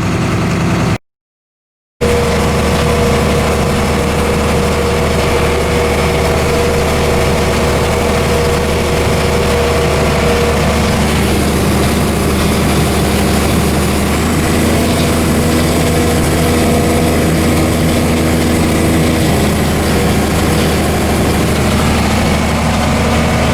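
Corn harvest machinery running steadily, a heavy diesel engine droning at a constant speed. A second of dead silence breaks it about a second in.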